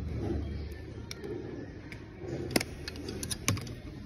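Scattered small metallic clicks and clinks of tools and parts being handled while a CS4 cylinder is put together, the sharpest about two and a half and three and a half seconds in, over a low steady background noise.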